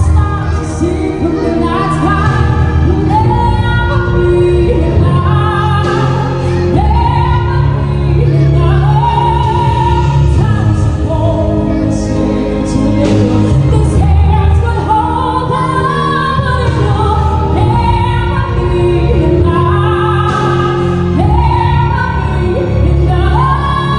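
A woman singing live into a handheld microphone over musical accompaniment, holding long notes.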